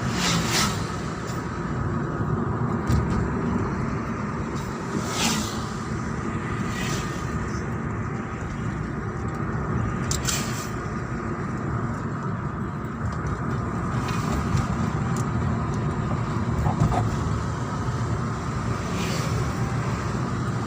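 Steady road and engine noise of a moving vehicle, with a few brief clicks or knocks scattered through it.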